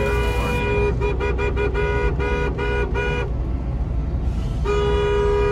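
Vehicle horn honking: a long blast, then a rapid string of short toots, then a gap and another long blast near the end, over a low steady rumble.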